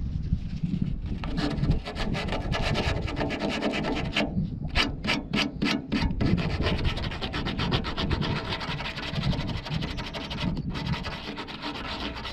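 Hand sanding of surface rust at the bolt-mounting spots of a steel car fender: quick rubbing strokes, with a short break about four seconds in and then a handful of separate, slower strokes before the rapid rubbing resumes.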